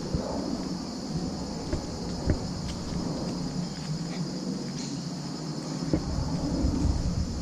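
A steady, high-pitched chorus of insects over a low rumble, with a few soft knocks.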